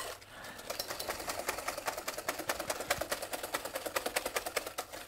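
Wire whisk beating egg yolks and sugar in a glass bowl: a rapid, even clicking of the wires against the glass, many strokes a second, as the mixture is whisked until pale.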